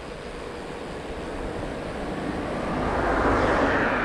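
Wind and road noise on a bicycle-mounted camera while riding, swelling to a peak about three seconds in as a car goes by on the road, then easing off.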